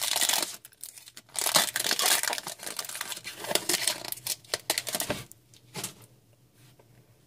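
Foil wrapper of an Upper Deck Series One hockey card pack being torn open and crinkled, a dense crackling rustle that dies down about five seconds in, leaving faint rustles as the cards are handled.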